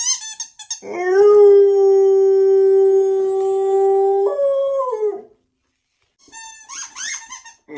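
Dog howling: one long steady howl of about three and a half seconds that jumps up in pitch near its end, then falls away and fades. Short high squeals come before it and again after a pause near the end.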